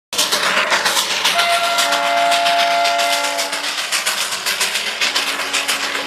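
Darjeeling Himalayan Railway steam locomotive working, its exhaust beating in rapid, even chuffs, with its whistle blown as a steady chord of several notes for about two seconds, starting a little over a second in. A fainter low steady tone comes in near the end.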